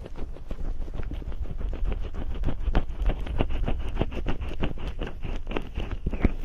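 Fingers rubbing cream or oil over and behind an ear on a binaural microphone, in quick repeated massage strokes, several a second, close on the microphone.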